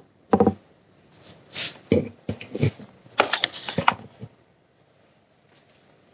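Handling noise from the helmet's packaging or the camera being moved: a series of knocks and scraping rustles, busiest about three to four seconds in.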